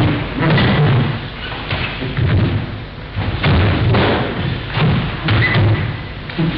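Repeated heavy thuds of feet stepping and stamping on a wooden dojo floor as two martial artists move through a weapons drill, coming unevenly about one or two a second.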